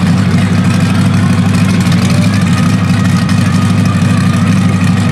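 Mega mud truck's engine running steadily, loud and deep, holding an even note throughout.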